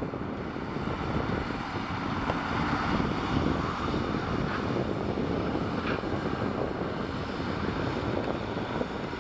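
GWR Modified Hall 4-6-0 steam locomotive No. 6990 standing with steam up, giving a steady rushing roar with no exhaust beats.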